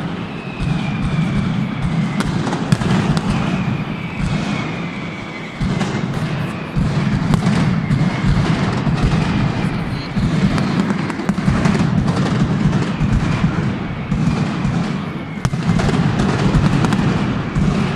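Mascletà firecracker barrage: a dense, continuous run of rapid bangs and crackles with a heavy low rumble. Long, slowly falling whistles run through it early on and again in the second half.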